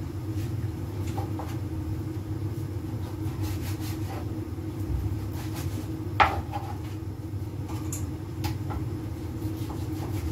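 A gas stove burner runs under a lidded pot of soup as it comes to the boil, a steady low rumble. Scattered light clicks and taps come from the pot, with one sharp knock about six seconds in.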